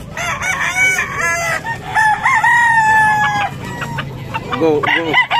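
Gamecock roosters crowing, several calls overlapping at first, then one long held crow about two seconds in, followed by more crows.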